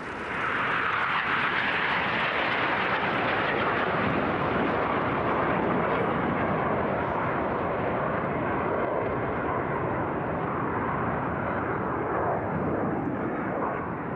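Aermacchi MB-339 jet trainers of an aerobatic team flying past low in formation: a loud, steady jet noise that swells about half a second in, holds, and eases off slightly near the end.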